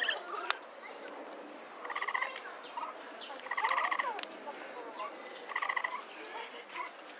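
Capybara making its chirring "kyuru-kyuru" call: three short bursts of rapid pulsed chirps, each under a second long, coming about every one and a half to two seconds. A sharp click comes about half a second in.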